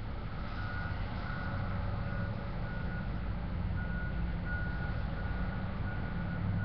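Truck's reversing alarm beeping, a short high tone roughly every two-thirds of a second with a brief pause midway, over a steady low hum of a truck idling.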